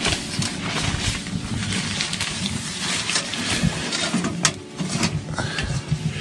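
Wood fire crackling inside a small steel hot-tent wood stove, with a sharp metal clank about four and a half seconds in as the stove door is shut, then a short scrape of the latch.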